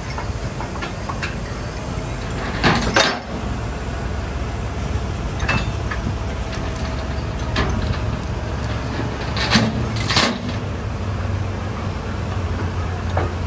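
Steady low rumble of idling heavy military vehicles, with scattered metallic clanks of tie-down chains being handled on a steel low-loader trailer deck: the loudest a pair about three seconds in and another pair around ten seconds in.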